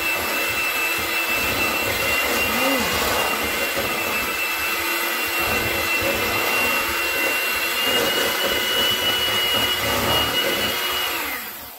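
Procter Silex electric hand mixer running loudly, its beaters working through cream cheese batter in a stainless steel bowl, with a steady high whine over the motor noise. It stops just before the end.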